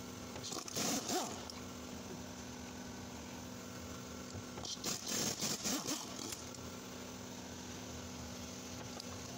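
Steady hum from the running drivetrain of a 2010 Lincoln MKX, heard from beneath at the driveshaft and rear differential. Two short bouts of rustling and scraping rise over it, about half a second in and again around five seconds in.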